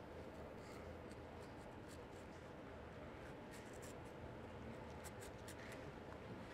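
Faint scratching and quick ticks of a sharp carving knife cutting into watermelon rind, with a cluster of strokes in the second half, over a low steady room hum.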